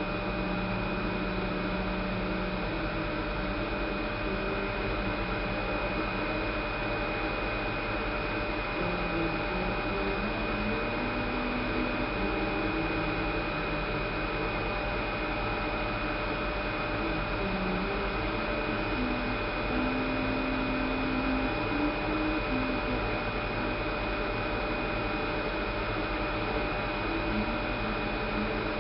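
Small belt-driven bench metal lathe running, turning a bar held in a three-jaw chuck and supported by the tailstock centre as the tool takes a cut. A steady hum with a steady high whine, and lower tones that shift in pitch now and then.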